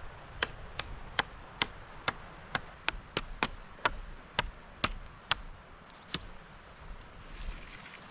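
Blade chopping on wood: a run of about fourteen sharp strokes, roughly two a second, stopping a little after six seconds in.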